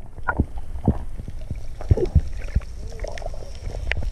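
Muffled water sound heard with the microphone under water: a steady low rumble of moving water with scattered bubbling pops and clicks.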